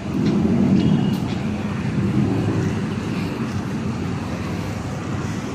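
Road traffic: motor vehicles running, a steady low rumble that swells just as it starts.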